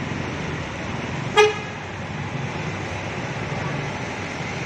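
One short horn toot about a second and a half in, over the steady hiss of heavy rain and the low rumble of a bus pulling away on a wet road.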